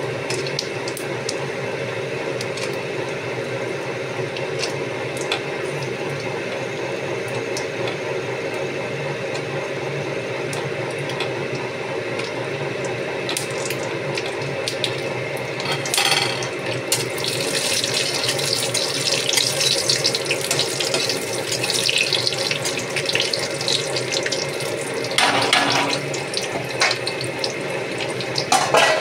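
Cashews and whole spices frying in hot ghee in a steel kadai: a steady sizzle that grows louder and more crackly through the second half, with a couple of short, sharper bursts.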